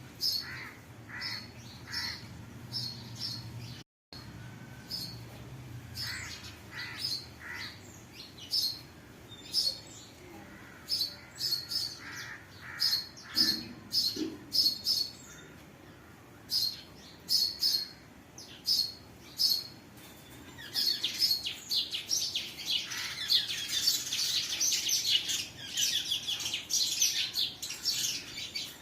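Birds chirping: a run of short, high, repeated chirps, which about two-thirds of the way through thickens into a dense, continuous twittering of many birds. The sound drops out for an instant about four seconds in.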